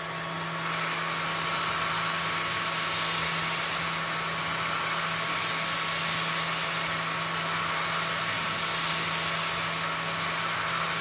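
CNC milling machine running a scallop toolpath in air, its end mill spinning along the chamfer without cutting metal: a steady spindle hum and hiss that brightens about every three seconds as the tool moves through each pass.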